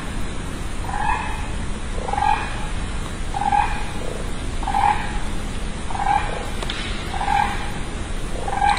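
Keel-billed toucan calling: a short call repeated evenly about once every 1.3 seconds, seven times, over a steady low background hiss.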